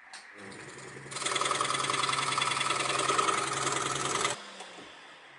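Hegner scroll saw switched on with a click, its blade running at a fast, even reciprocating rhythm that gets much louder about a second in. It stops suddenly a little past four seconds in, and a low hum dies away as the saw runs down.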